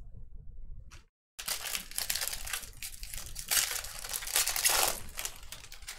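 Foil wrapper of a baseball card pack crinkling as it is opened and handled, in crackly bursts starting about a second and a half in.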